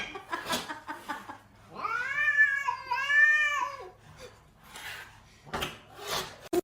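A cat yowling in two long, drawn-out meows about two seconds in, with a few short knocks around them.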